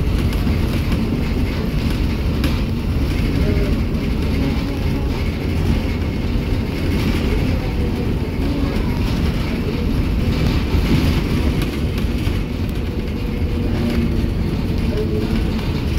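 Steady low rumble of a Mercedes-Benz O-500U city bus under way, heard from inside the cabin: engine and road noise.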